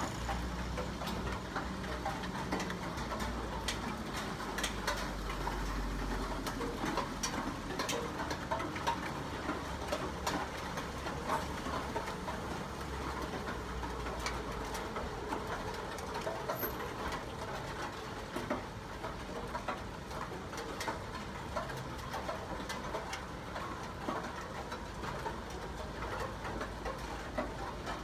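Rain pattering steadily, with many sharp drip clicks. There is a low rumble for the first several seconds.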